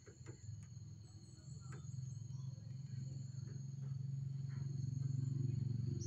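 Insects trilling steadily in two high, unbroken tones over a low rumble that gradually swells louder, with a few light clicks in the first two seconds.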